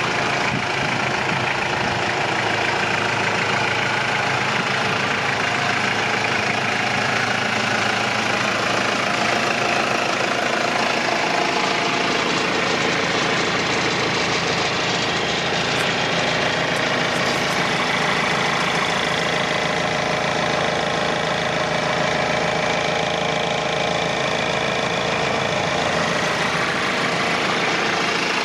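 New Holland Boomer 40 compact tractor's diesel engine idling steadily.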